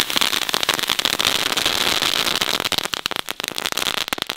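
Category 1 crackling fireworks going off: a dense, rapid crackle of many small pops that thins out to scattered pops near the end.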